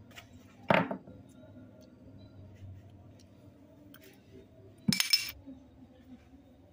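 Two short clattering knocks of small objects being handled, one under a second in and a brighter, clinking one about five seconds in, which fits a small green plastic scoop dropped by a baby monkey and clattering on the floor.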